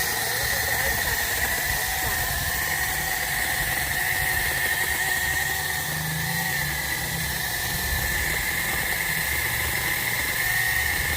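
Battery-powered portable chainsaw running with a steady high-pitched whine.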